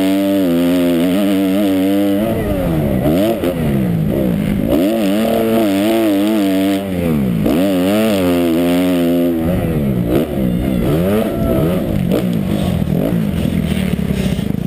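Motocross dirt bike engine revving hard and dropping back again and again as the rider works the throttle and gears around a dirt track, heard from the rider's helmet with wind rush over it. Each rise in pitch lasts a second or two before the throttle is cut, and the revs get choppier in the last few seconds.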